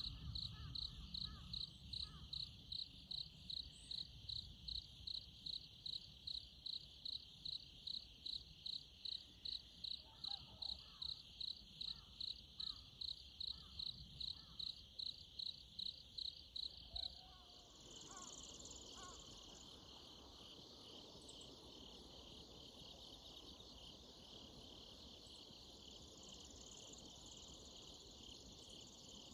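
Insects calling: a high chirp repeated evenly about twice a second, which gives way a little past halfway to a continuous high trill.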